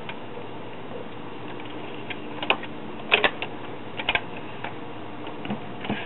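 Collaro Micromatic record changer cycling between 45 rpm records: a scatter of sharp mechanical clicks and clunks, the loudest pair about three seconds in, over a faint steady background noise, as the next record drops and the tonearm swings back in.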